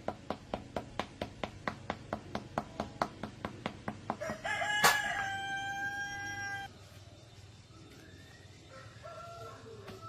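An even, rapid clicking, about five clicks a second, runs for the first four seconds. Then a rooster crows once, about two seconds long, with a sharp knock partway through. Fainter crowing follows near the end.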